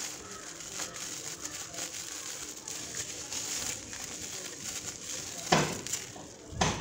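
Plastic bubble wrap crinkling and rustling as it is unwrapped by hand, with two sharper, louder crackles or handling knocks near the end.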